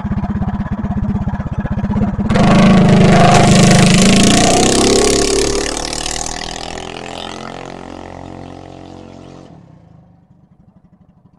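Coleman minibike's small single-cylinder engine with a billet Slipstream flywheel, running at high speed. About two seconds in it turns suddenly loud as the bike passes close by. Then its pitch slides down and it fades away over several seconds, nearly gone near the end.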